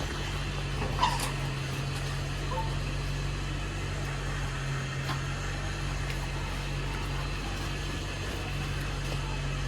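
A steady electric motor hum under an even hiss, with a sharp click about a second in.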